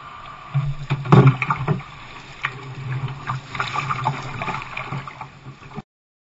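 Canoe being paddled through shallow water: paddle strokes splashing and water lapping against the hull, with a louder knock and splash about a second in. The sound cuts off suddenly near the end.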